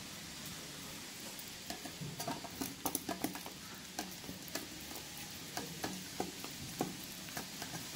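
Fingers squishing and kneading a wet spice paste in a stainless steel bowl. Soft at first, then from about two seconds in come many irregular sticky, crackly clicks as the paste is worked against the bowl.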